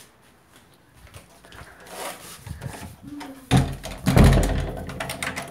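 Handling noise: the phone rubbing and knocking against a wooden door surface, building to two loud scuffs about three and a half and four seconds in.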